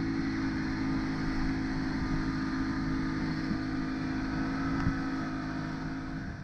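60 hp outboard motor running steadily at cruising speed, with the rush of wind and spray over it, heard from aboard a RIB under way.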